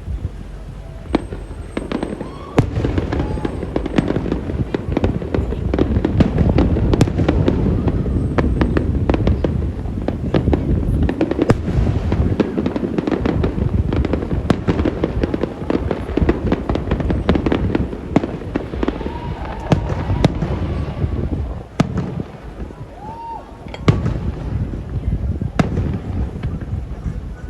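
Fireworks display: shells bursting in quick succession, a dense run of bangs and crackling over a low rumble, easing for a moment about two thirds through before picking up again.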